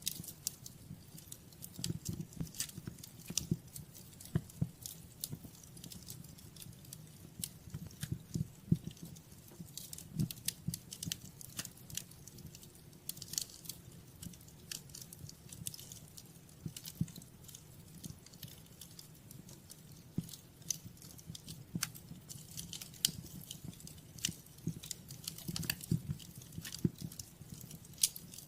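Wood fire in a fireplace crackling and popping: irregular sharp snaps scattered throughout over a soft low rumble of the flames.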